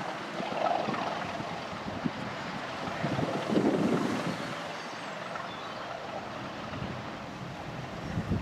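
Wind buffeting the microphone in gusts, swelling most about three and a half seconds in.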